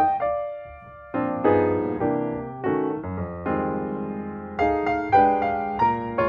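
Piano music: chords and notes struck one after another, each fading away, with a short lull about a second in.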